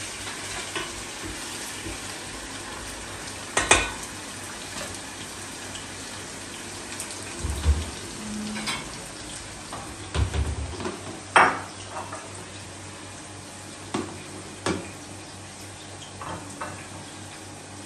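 Kitchen work: pots, dishes and utensils knocking and clinking now and then over a steady hiss.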